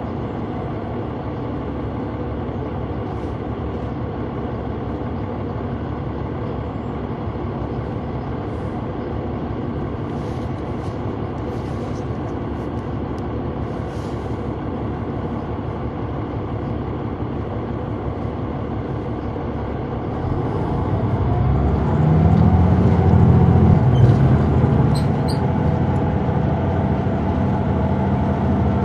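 Caterpillar C9 diesel engine of a 2004 Neoplan AN459 articulated bus, heard from on board, running steadily and then growing louder and rising in pitch as it revs up about twenty seconds in.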